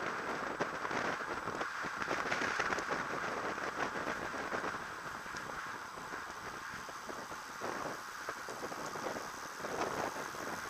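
Wind rushing over a bike-mounted action camera's microphone as the rider rolls along in a racing bunch, a steady hiss flecked with many faint ticks and crackles.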